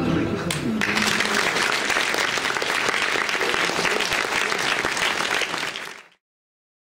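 The last note of orchestral ballet music dies away, and audience applause starts just under a second in, steady and dense. The applause cuts off suddenly about six seconds in.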